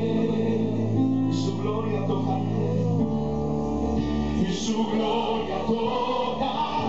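Christian worship music: several voices singing together over held, sustained chords, with the bass note dropping lower about three seconds in.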